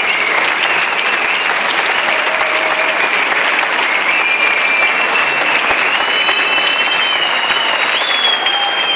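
Theatre audience applauding steadily to call the band back for an encore, with long high whistles over the clapping.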